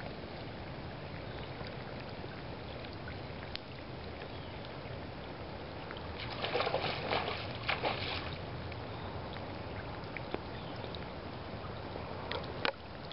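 Creek water running steadily. About six seconds in, a louder noisy stretch of splashing-like sound lasts about two seconds, and a couple of sharp clicks come near the end.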